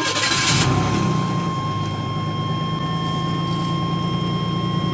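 Chevy S10's 2.8-litre V6 starting: a brief burst of cranking as it catches, then settling into a steady idle. A thin steady high tone sounds over it and cuts off at the very end.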